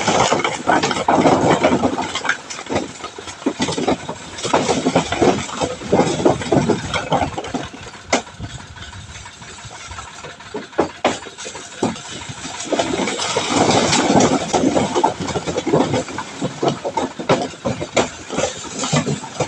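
Bricks sliding off a tipped tractor trailer and clattering onto a pile, a dense run of hard knocks in two heavy spells with a calmer stretch between, over a tractor engine running.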